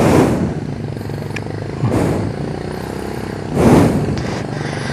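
A vehicle engine idling steadily, with short, louder surges of noise at the start, about two seconds in, and near the end.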